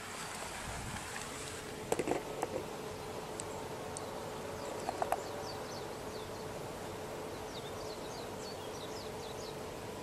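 Steady outdoor background hiss with a faint even hum, a few sharp knocks about two and five seconds in, and in the second half runs of quick, high, falling chirps from a small bird.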